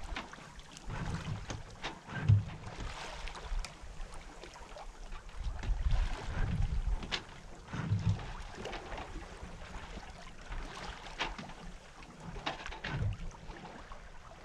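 Westsail 32 sailboat under sail: water rushing along the hull and wind buffeting the microphone in uneven gusts, with a few short sharp knocks.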